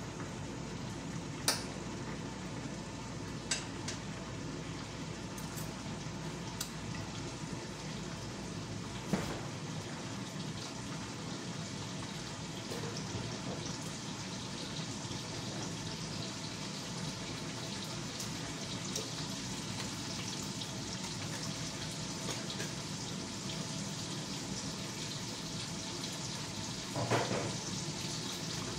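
Food frying in oil in pans on a stove, a steady sizzle throughout. A few sharp clicks in the first ten seconds and a brief clatter near the end.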